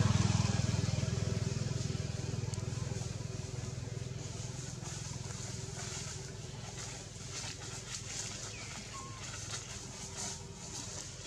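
A motor vehicle's engine passing close by and fading away over the first few seconds, followed by scattered faint clicks and rustles.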